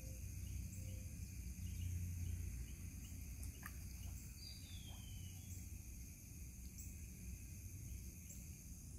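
A steady, high-pitched insect chorus over a low rumble, with a bird giving one short downward-sliding call about four and a half seconds in.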